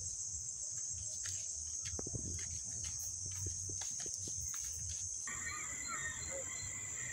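Crickets chirring in a steady, high-pitched chorus, with faint clicks and a low rumble underneath. About five seconds in the chorus changes abruptly to a different insect chorus with an added steady lower whine.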